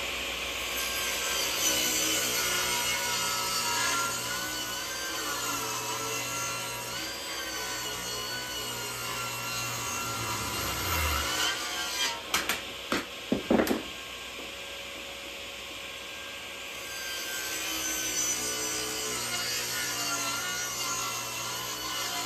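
Laguna F1 Fusion table saw, running on 220 V, ripping thick white oak over several passes, the blade cutting steadily through the hardwood. A few sharp knocks sound a little past halfway.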